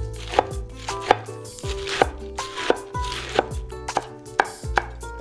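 Chinese cleaver chopping cabbage into shreds on a wooden cutting board, the blade knocking against the board about twice a second.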